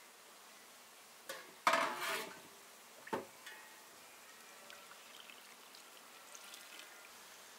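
A short splash of poured liquid, loudest about two seconds in, followed by a single sharp knock about a second later.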